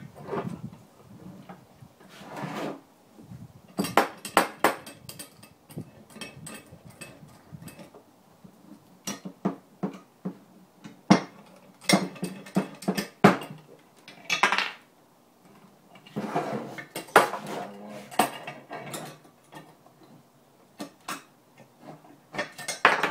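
Metal clinks and knocks in irregular clusters from a small bench vise being handled and cranked by hand, pressing a Nylock nut into a small 3D-printed plastic part.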